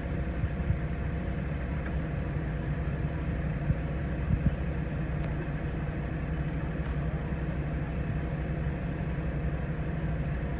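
Engine of site machinery running steadily at a constant idle, a low hum that holds one pitch, with a couple of brief knocks about four seconds in.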